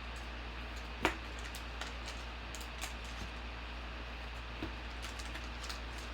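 Trading cards being handled and flipped, with a sharp tap about a second in and a few fainter clicks after, over a steady low hum.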